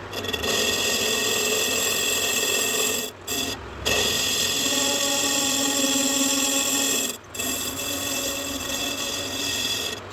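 Lathe cutting tool turning a cast iron V-belt pulley, a steady screeching cut with sustained high tones that breaks off briefly twice, about three seconds in and again about seven seconds in.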